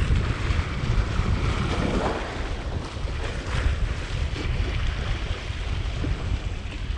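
Wind buffeting the microphone as a steady low rumble, with small waves washing and splashing against the rocks of a jetty.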